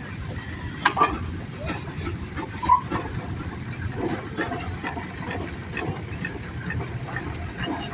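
Steam engines running with a steady low rumble and hiss, under faint crowd chatter, with two sharp knocks, one about a second in and one near the three-second mark. No whistles are blowing.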